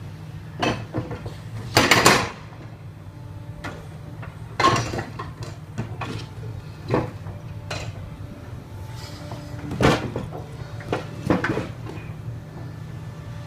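Construction work: irregular knocks and bangs, the loudest about two seconds in, over a steady low machine hum.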